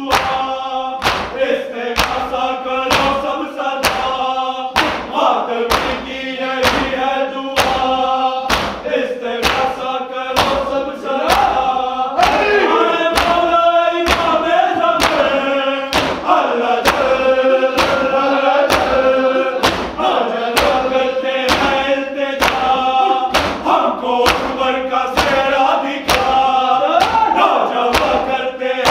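A group of voices chanting a noha, a Shia lament, in unison. A steady beat of chest-beating (matam) thumps keeps time, about three every two seconds.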